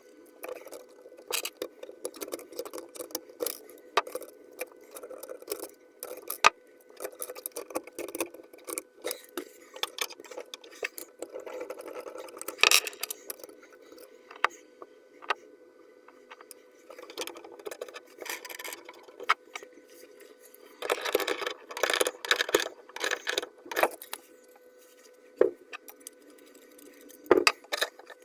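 Plumbing tools and metal fittings being handled: scattered sharp clicks, knocks and metallic clinks, with a denser run of rattling about three-quarters of the way through. A faint steady tone sits under it.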